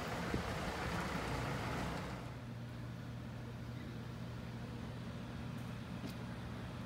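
Outdoor ambience: a broad, wind-like hiss for about the first two seconds, then a steady low hum with a few faint clicks.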